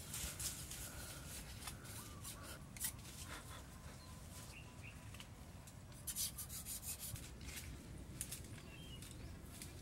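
Rustling and scraping of leafy branches and wood, with scattered sharp clicks and snaps and a brief cluster of louder ones about six seconds in; faint short bird chirps now and then.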